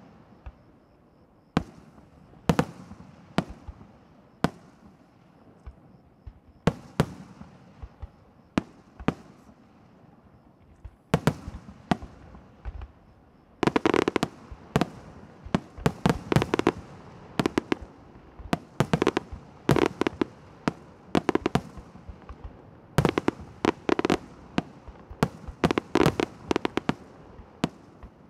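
Aerial firework shells bursting with sharp bangs. They come singly, a second or two apart, for the first half, then in rapid clusters from about halfway through.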